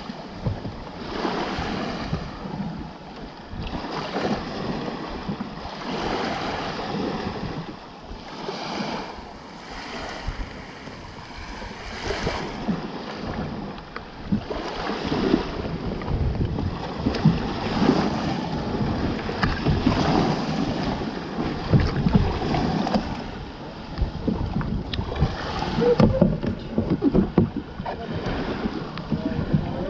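Small waves lapping and slapping against a plastic sit-on-top kayak's hull, with wind on the microphone. The wash swells and falls about every two seconds at first, then turns choppier with sharper splashes and knocks in the second half.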